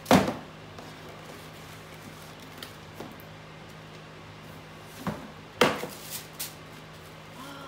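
A cardboard shoebox and its lid being handled and set down on a hard kitchen floor: a sharp knock at the start and another about five and a half seconds in, with lighter taps and tissue paper rustling between and after.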